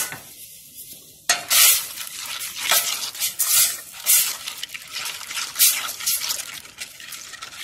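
A black plastic spoon stirring powdered turkey gravy mix into cold water in a metal stockpot: rhythmic swishing and scraping strokes against the pot, about two a second, starting about a second in.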